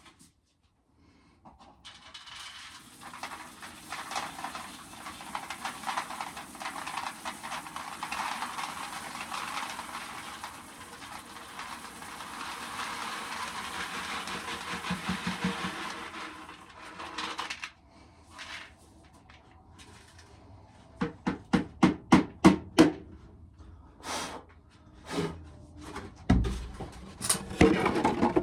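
Shelled corn kernels poured out of a pail, a dense rattling hiss that runs for about fifteen seconds, followed by a series of sharp knocks and clatters as the pail is handled.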